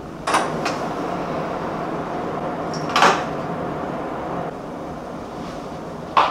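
Curtain rings with clips sliding and clicking along a curtain rod as a curtain is hung and adjusted. There are short, sharp scrapes just after the start, again about three seconds in, and once more near the end, over a steady background hum.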